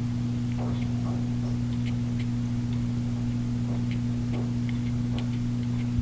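Steady low electrical hum from reef-tank equipment, with faint irregular ticks and clicks over it.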